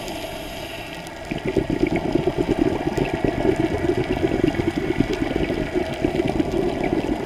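Underwater bubbling and water noise through a camera's waterproof housing. It is quieter for about the first second, then becomes a dense, rapid crackling bubbling.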